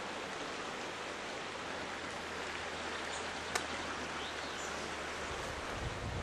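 Steady rush of running water from the River Tees, with High Force waterfall further on.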